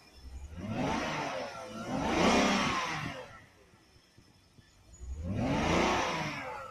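Car engine revved three times, the pitch rising and falling with each blip of the throttle: two revs close together, a pause at idle, then a third. It is being tested after work on a suspected vacuum leak, and the owner doubts the leak was the cause of its rough running.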